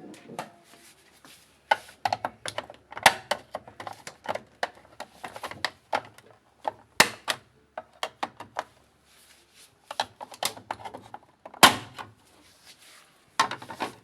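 Irregular clicking and knocking of hard plastic parts as a washing machine's control panel is unclipped and handled, with a few louder knocks about three, seven and nearly twelve seconds in.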